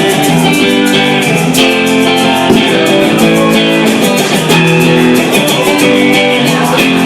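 Rock band playing an instrumental passage between vocal lines, led by strummed guitars with bass and drums keeping a steady beat.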